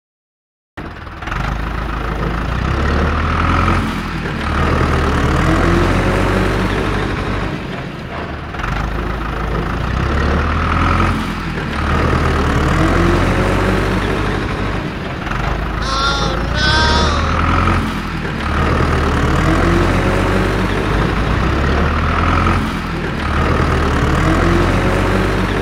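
Heavy-vehicle diesel engine sound effect, running and revving up again and again in a repeating loop. A brief high chirp comes in about two-thirds of the way through.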